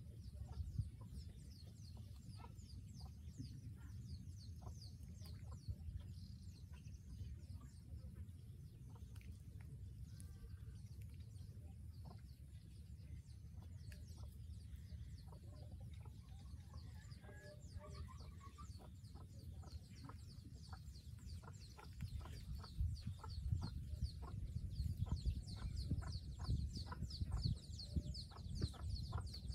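Faint outdoor ambience of birds calling in the background, with many short high chirps and what sound like fowl clucks, over a low rumble on the microphone that grows louder near the end. Scattered light clicks come through along with them.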